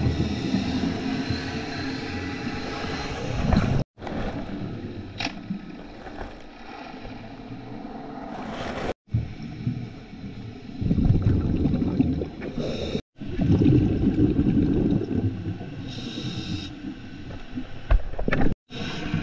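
Underwater sound at the lake bottom: a scuba diver's regulator breathing and exhaust bubbles, swelling rushes and gurgles. The sound cuts out completely and abruptly four times.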